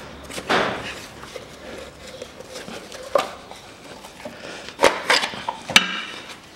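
Rubber steering-rack boot being pried with a screwdriver and worked off the tie rod: scraping and rubbing of rubber on metal, then several sharp clicks and a short ringing metallic clink near the end.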